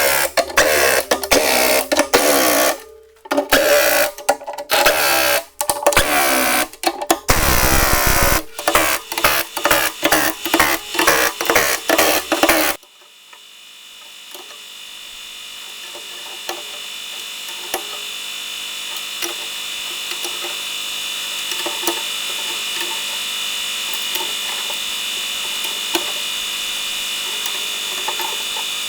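Impact wrench rattling in short runs as it drives the plow bolts of a new backhoe bucket cutting edge. It cuts off sharply about halfway through, and a steady mechanical hum with faint ticks takes over, slowly growing louder.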